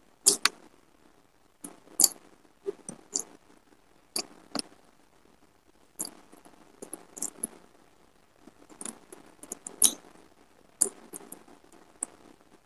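Close-miked eating sounds of fried fish eaten by hand: short, sharp mouth clicks and smacks while chewing, coming in clusters every second or two.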